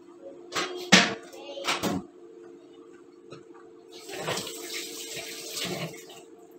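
A few sharp knocks and clatters in the first two seconds, the loudest about a second in, then a kitchen tap running into a stainless steel sink for about two seconds, starting about four seconds in.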